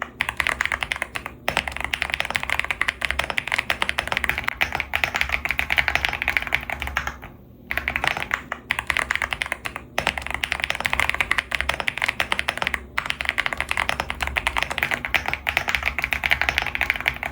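Mechanical keyboard with Gateron Type R tactile switches being typed on quickly: a dense, continuous stream of keystrokes with a few brief pauses, the longest about seven seconds in.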